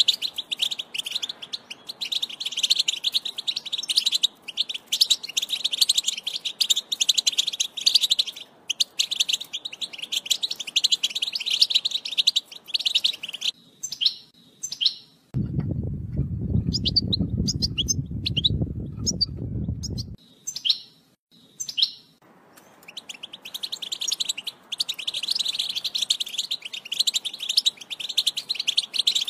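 European goldfinch singing a rapid, unbroken twittering song in the Wedani style. About halfway through the song gives way to scattered chirps, with a low noise for about five seconds. Then the full twittering starts again for the last several seconds.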